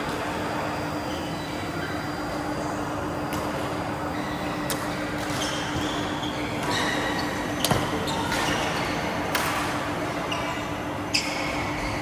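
Badminton rackets striking a shuttlecock in a rally: several sharp hits about a second apart, over steady hall noise with a low hum.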